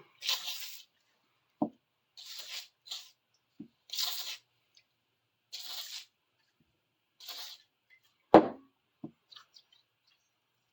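A freshly cleaned hand tool being oiled and rubbed over with a rag: about six short swishing strokes, then a sharp knock about eight seconds in.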